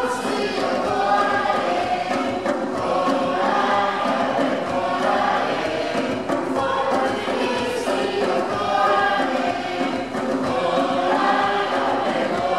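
Church choir singing, a steady unbroken run of sung notes.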